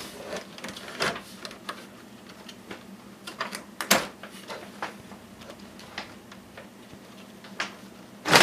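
Clicks, knocks and rattles of plastic and metal parts as hands work inside a computer case, pulling and pushing IDE ribbon-cable connectors on the drives, with a louder knock near the end. A steady low hum runs underneath.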